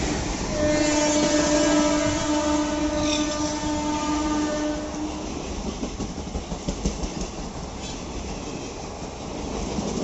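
Horn of a WAP4 electric locomotive sounding one long, steady note, starting about half a second in and lasting about four and a half seconds as the locomotive passes close by. After that the passenger coaches roll past, their wheels clicking over the rail joints.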